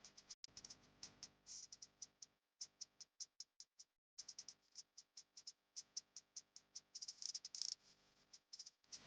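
Faint, irregular clicking and rattling, several sharp clicks a second with a denser flurry about seven seconds in, over a faint steady hum.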